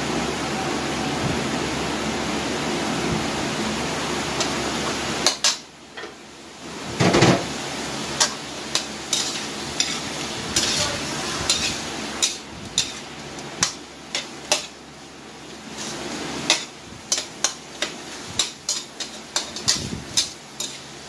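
Metal spatula clacking and scraping against a metal wok while shrimp are stir-fried, with many sharp clicks and one heavier knock about seven seconds in. For the first five seconds there is a steady hiss, which cuts off suddenly.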